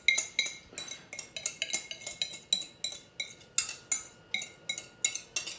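A kitchen utensil clinking and scraping against bowls as egg yolk mixture is emptied into a stainless steel mixing bowl: an uneven run of sharp clinks, about three a second, each with a short metallic ring.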